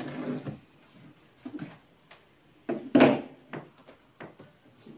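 Handling noise from a plastic drone charger and its cable being picked up and set against a wooden tabletop: a brief rustle, then a scatter of short clicks and knocks, the loudest a sharp clatter about three seconds in.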